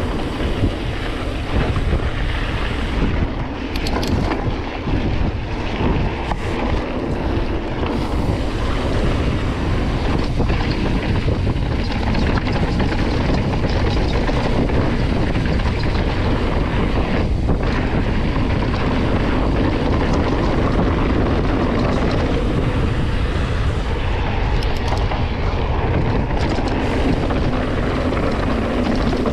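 Wind rushing over the camera's microphone and tyres rumbling over a dirt trail as a full-suspension enduro mountain bike descends at speed, with a few sharp knocks and rattles from the bike over bumps.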